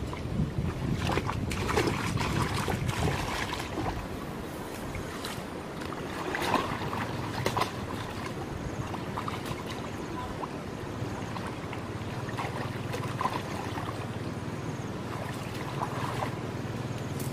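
Outdoor field sound: wind on the microphone, with sloshing of shallow muddy water and rustling of brush and grass, broken by scattered small knocks and rustles.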